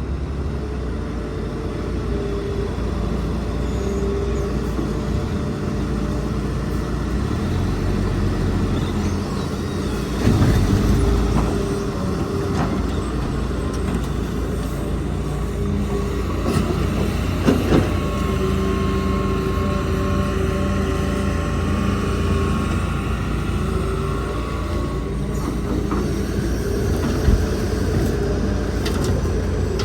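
Heavy diesel machinery of a Hitachi excavator and dump trucks running steadily at work. There is a louder thump about ten seconds in, a few sharp knocks later, and a steady whine for several seconds past the middle.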